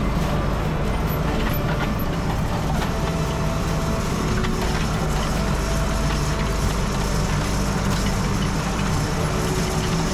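Tractor engine running steadily while it pulls a wheel rake through hay.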